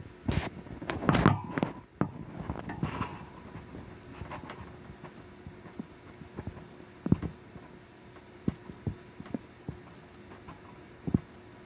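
Guinea pig stirring in its fleece bed and nibbling hay: a flurry of rustling and scraping in the first few seconds, then scattered soft clicks and taps.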